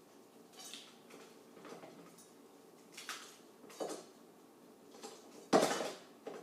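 Kitchen handling sounds: a few short scrapes and rustles, then a sudden loud knock about five and a half seconds in, with a smaller one just after.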